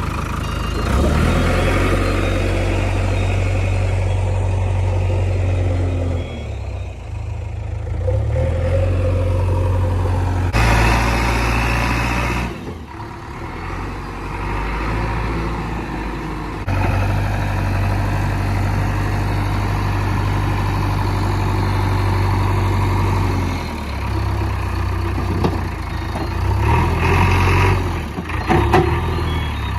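JCB 3DX backhoe loader's diesel engine running under load, its low rumble rising and falling several times as the machine works. A few knocks come near the end.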